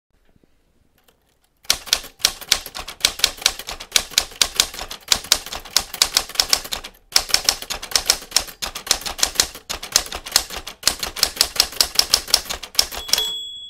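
Typewriter sound effect: keystrokes clattering in quick succession, with a brief pause about seven seconds in, then a short ringing bell ding near the end.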